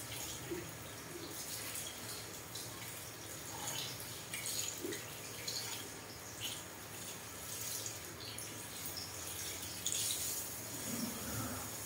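Water from a handheld shower sprayer running over hair and into a shampoo basin during a hair rinse. A steady spray with irregular splashes and drips.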